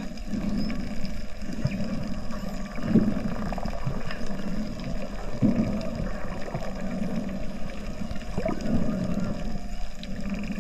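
Spinner dolphins calling underwater: several short whistles that slide in pitch, with faint clicks, over a steady low underwater rumble.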